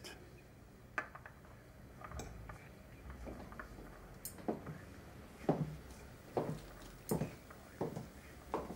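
A knife and fork clinking and scraping on a plate as someone cuts and eats food: a string of short sharp clicks, about one a second through the second half.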